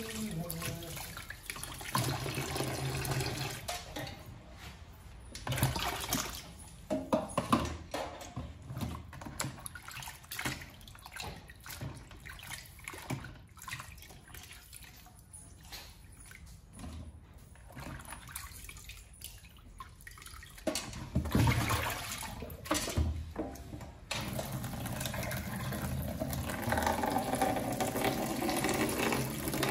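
Tap water running into a plastic basin of water in a sink, with splashing as hands rinse broccoli and mushrooms. The steady stream drops away for a long stretch in the middle, leaving scattered splashes and drips, and comes back near the end.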